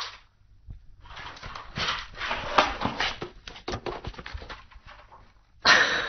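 Cardboard box rustling and scraping, with many small sharp crackles, as a cat squeezes itself through a hole in the box. A sudden louder burst of noise comes near the end.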